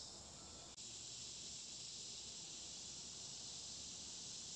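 Steady high-pitched hiss over faint low background noise, with a small click about a second in.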